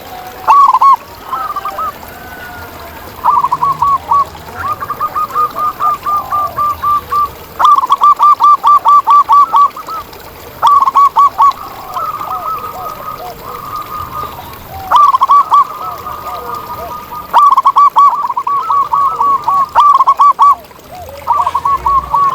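Zebra doves singing: repeated phrases of quick, short cooing notes, several a second, coming in bursts every few seconds. Fainter, lower coos overlap in places.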